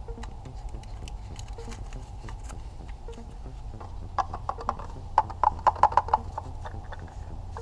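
A quick run of sharp plastic clicks and knocks, about a dozen in two seconds, starting about halfway through, as a paper oil filter element and its plastic housing cap are handled and fitted together. A steady low hum runs underneath.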